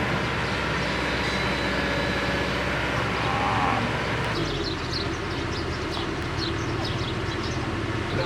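Excavator engine running steadily at a low, even pitch, with short high chirps over it in the second half.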